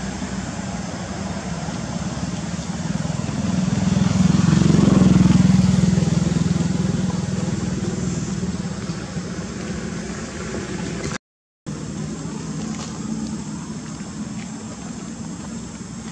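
Low, steady engine drone of a passing motor vehicle, growing louder about four seconds in and then slowly fading.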